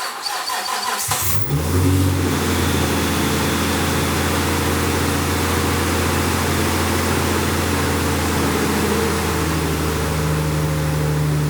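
Nissan Skyline R33's RB25DET turbocharged straight-six catching and starting about a second in, then running at a steady cold idle.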